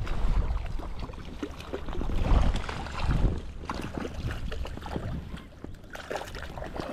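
Water splashing and sloshing close to the microphone in short irregular bursts, with gusts of wind rumbling on the microphone.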